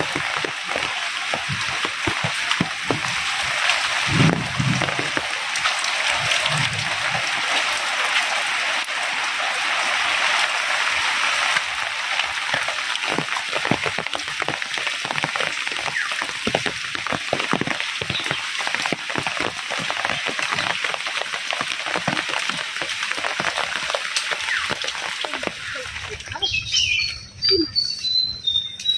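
Heavy rain falling steadily, with many separate drops striking close by. About 26 seconds in, the rain noise falls away and a bird chirps several short, high notes.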